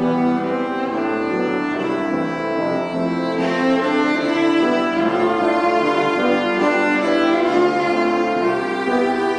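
Cello played with the bow, accompanied by a grand piano.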